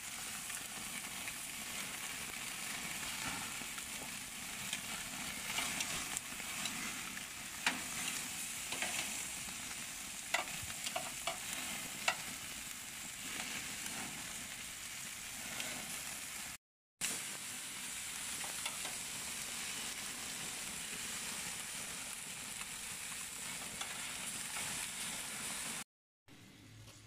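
Meat sizzling on a barbecue grill over open flame: a steady hiss with occasional sharp pops of spitting fat. The sound breaks off briefly twice.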